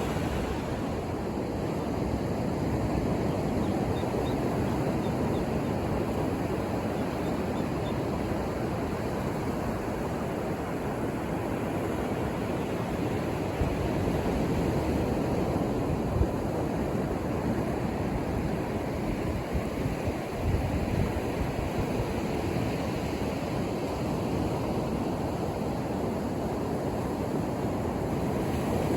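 Ocean surf breaking and washing up a beach as a steady rushing noise, heaviest in the low end, with a few brief low thumps.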